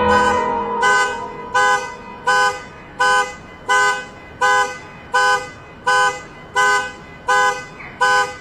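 Car alarm honking in short, evenly spaced blasts, about one every 0.7 seconds, each a blend of several steady tones. A musical passage fades out in the first second before the honking starts.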